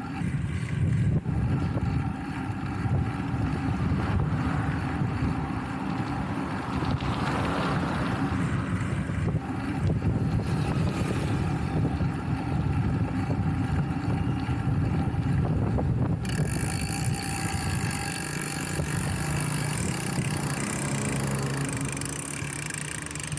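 Wind rushing over the camera's microphone and tyre noise from a bicycle riding along a paved road: a steady, low buffeting. A brighter hiss with some steady higher tones joins about two-thirds of the way through.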